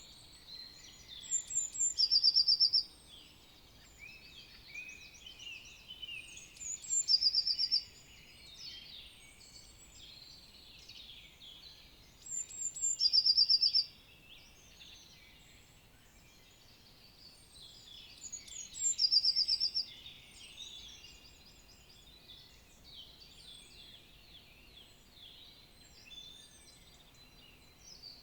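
Several forest songbirds singing together in spring. One bird stands out, repeating a short song that ends in a fast trill about every six seconds, four times in all, over quieter overlapping calls from other birds.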